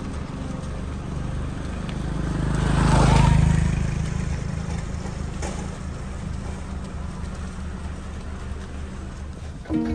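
A motor vehicle passing by, growing louder to its loudest about three seconds in and then fading away, over a steady low engine hum.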